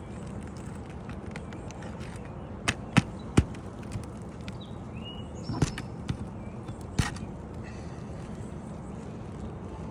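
A handful of sharp knocks from hand tools working on asphalt shingles: three close together, about half a second apart, then three more spread over the next few seconds, over a steady outdoor background. A short bird chirp comes in the middle.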